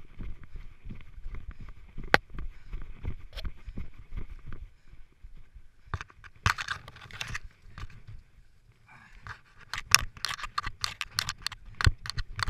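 A runner's footfalls on a leafy forest trail, heard close up from a body-worn camera. About six seconds in this gives way to rustling and scraping as the runner crawls over grass and dirt, with the camera brushing the ground.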